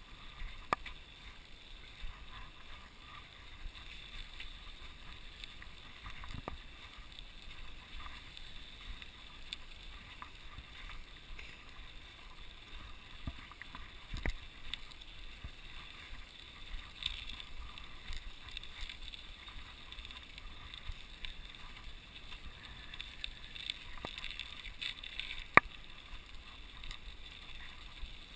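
A mountain bike riding over a snow-covered road: a steady hiss of tyres on snow and wind, with scattered clicks and knocks as the bike jolts over bumps, one sharp knock near the end.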